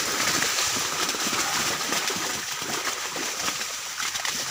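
Fish thrashing in the shallow water trapped inside a net as it is hauled ashore: many small splashes running together into a steady churning.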